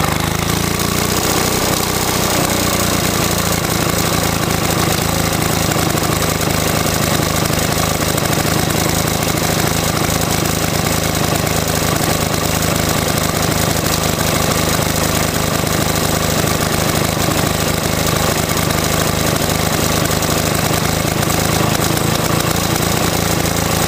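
Victa two-stroke mower engine running steadily at idle, just after a wind-up starter start. It sounds lumpy through a holed exhaust.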